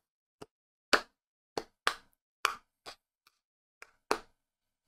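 A string of about eight short, sharp hits, unevenly spaced, with dead silence between them: sound effects in an anime edit's soundtrack.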